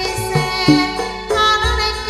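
Javanese gamelan playing tayub dance accompaniment: sustained metallophone and gong-chime tones over repeated short hand-drum strokes, with a female waranggana singer's voice sliding in about halfway through.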